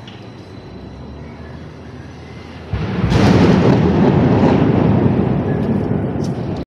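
Thunderclap: a sudden loud crack nearly three seconds in, followed by a heavy low rumble that lasts a few seconds and then cuts off abruptly.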